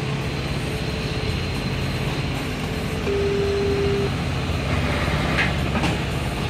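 Heavy-haul truck diesel engine running with a steady low drone as a multi-axle heavy-load convoy rolls slowly past. A steady single tone sounds for about a second midway through.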